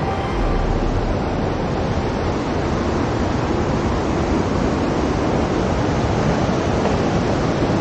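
Steady rushing of a mountain river running below, an even hiss with no breaks.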